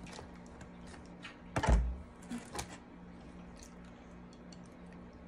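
Eating sounds: small clicks and taps of a fork in a foil-lined foam takeout container, with one louder knock about one and a half seconds in, over a faint steady hum.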